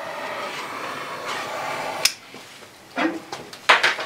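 Gas lighter flame hissing steadily while lighting fire-starter cubes in lump charcoal, cutting off with a click about two seconds in. A couple of knocks follow near the end.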